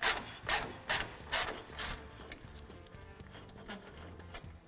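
Ratchet on a 12 mm socket and extension loosening a horn mounting bolt: five short runs of pawl clicking, about two a second, over the first two seconds, then only faint ticks.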